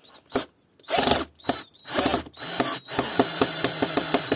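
A Parkside PBSA 12 12-volt cordless drill/driver drives a screw into a wooden block with a PZ2 bit. It runs in several short bursts, then a longer run near the end with a fast series of clicks, about seven a second.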